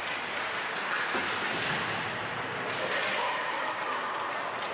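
Live ice hockey rink sound: skates scraping and carving on the ice, with sharp clicks of sticks and puck, over spectators' chatter.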